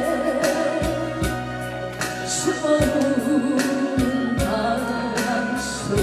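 A woman singing a slow Korean ballad with heavy vibrato over a backing track with a steady kick drum beat. There is one sung phrase at the start and another from about two and a half seconds in.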